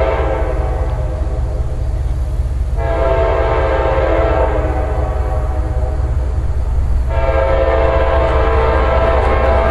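A CSX freight locomotive's multi-chime air horn sounding two blasts: one about three seconds in that fades after a second and a half, and a second starting about seven seconds in and still sounding at the end. A steady low rumble lies underneath.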